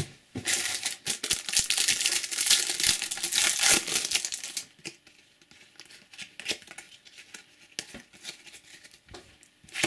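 A foil trading-card booster pack being torn open and crinkled, a dense crackle lasting about four and a half seconds. After that come only soft, scattered clicks of cards being handled.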